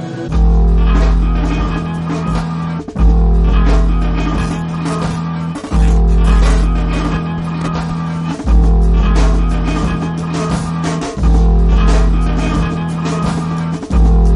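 Rock music with guitar, bass and drums, at full level from the start, with a heavy low bass note returning about every three seconds.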